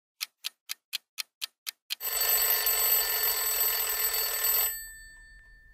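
Alarm clock ticking, eight even ticks at about four a second, then its bell ringing for nearly three seconds and fading away.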